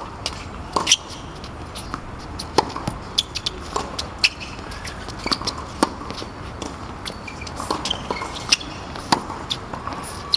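Tennis rally on a hard court: a tennis ball struck by rackets and bouncing off the court, sharp pops coming irregularly about once or twice a second.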